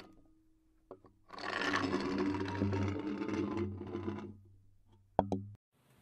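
Sound effects of a channel logo intro. About a second in comes a small click, then about three seconds of a dense buzzing, rushing noise over a steady low hum that fades out, and two quick sharp hits around five seconds in.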